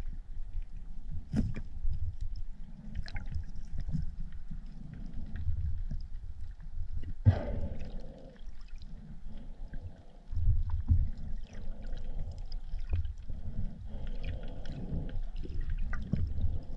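Underwater ambience in shallow water: a muffled low rumble of moving water with scattered clicks and knocks, the sharpest about seven seconds in.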